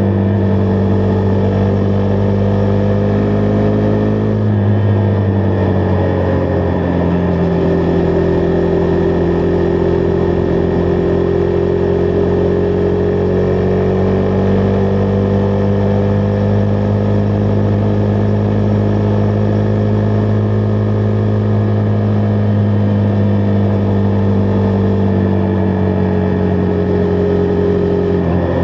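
Husqvarna Vitpilen 401's single-cylinder engine running steadily under way, with wind rushing past. The engine note drops about four seconds in, then holds at a steady cruise.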